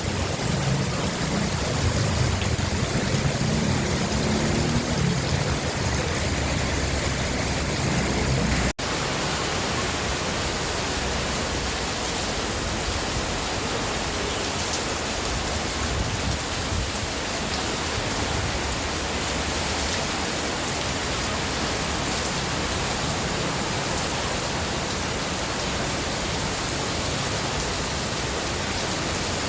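Heavy rain and strong wind: a steady rushing hiss, with a low rumble of wind for the first several seconds. After a brief dropout about nine seconds in, only the even hiss of rain remains.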